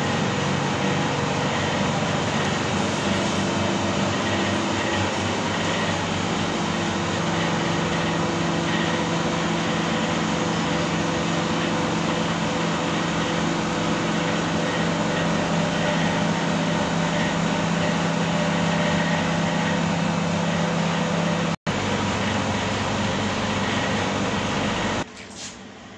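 Loud, steady rush and hum of commercial kitchen machinery: refrigeration units and fans running, with a low steady drone under the rush. There is a split-second cut-out about three-quarters through, and the noise drops off sharply near the end.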